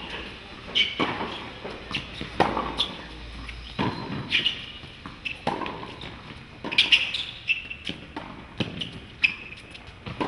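Tennis rally on a hard court: rackets striking the ball and the ball bouncing, sharp impacts coming about once a second, with short high squeaks between them.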